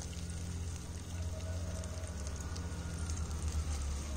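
Pieces of steak frying in their rendered fat in a pot, a steady sizzle with fine crackling. A steady low hum runs underneath.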